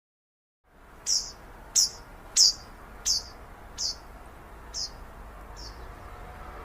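A small bird chirping, a series of about seven short, high, evenly spaced chirps that grow fainter and stop, over a steady low background noise. The sound starts after a moment of dead silence.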